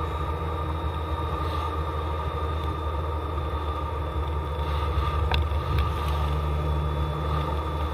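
Steady low engine and road drone inside a moving car's cabin.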